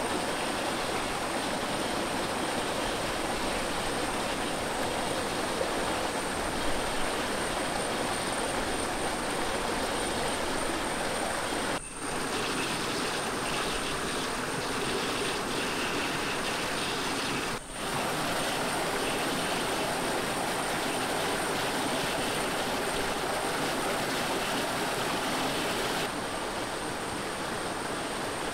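Rushing water of a small rainforest stream and waterfall, a steady hiss that drops out briefly twice, with a thin steady high whine above it.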